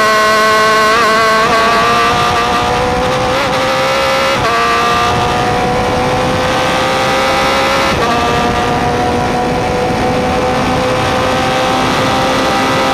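Atlantic open-wheel race car's engine accelerating hard, heard from an onboard camera behind the driver with wind noise. The pitch climbs steadily and drops sharply at two upshifts, about four and a half and eight seconds in.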